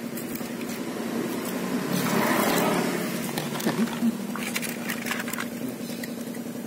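Water poured into an open electronics box, splashing over its circuit board, over a steady low hum. A few sharp knocks follow about four seconds in as the box is handled.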